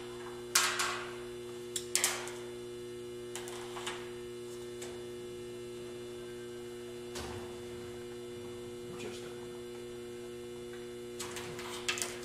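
Steady electrical mains hum, with a few short scrapes and clicks of hands and a tape measure handling the aluminium door frame. The loudest of these come in the first two seconds and again near the end, with a soft thud about seven seconds in.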